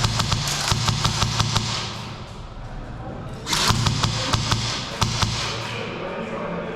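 Airsoft electric rifle firing two bursts of rapid clicking shots, each about a second and a half long: one at the start, one starting about three and a half seconds in. A low motor hum runs under the shots.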